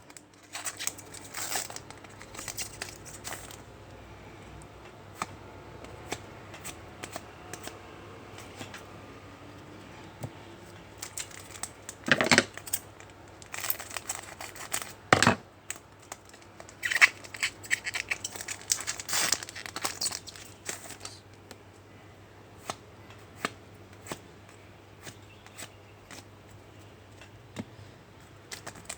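Trading card pack wrappers being torn open and crinkled, with cards handled between them: intermittent paper rustling and sharp crackles, a few louder bursts near the middle.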